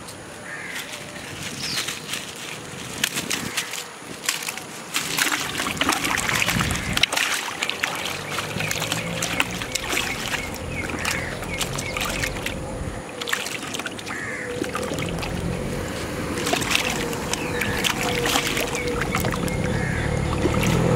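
A freshly caught tilapia thrashing and splashing in a plastic bucket of water, with irregular sloshing and splashes. A steady hum comes in about two-thirds of the way through.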